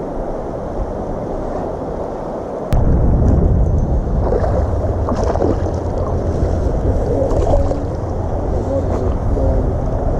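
Wind buffeting the microphone over the steady rush of river water. About 2.7 s in there is a click, and the low wind rumble becomes much louder.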